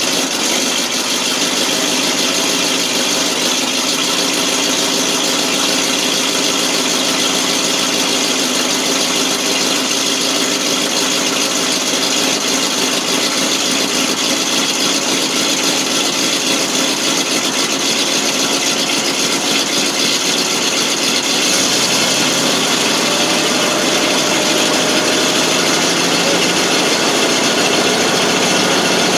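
The 1988 FMC 6000 truck's engine has just caught after a long hard start and runs steadily. A lower note joins in about two-thirds of the way through.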